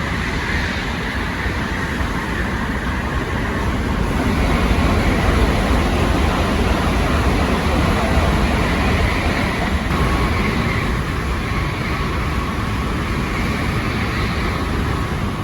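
Shinkansen bullet train running along the platform: a steady heavy rush of noise with a faint whine, swelling a little in the middle.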